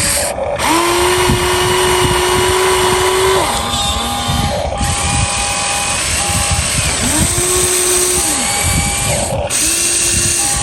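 RC excavator's small electric motors and gearboxes whining in runs that start, hold steady for a second or a few, and stop as different functions are worked, over a constant mechanical hum.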